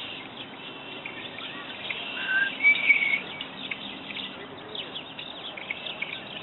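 Several red-winged blackbirds singing and calling together, a chorus of chirps and trills, loudest around the middle.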